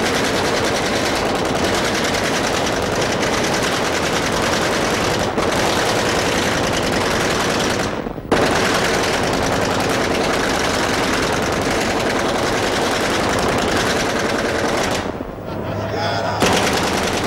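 Sustained rapid machine-gun fire, breaking off for a moment about eight seconds in.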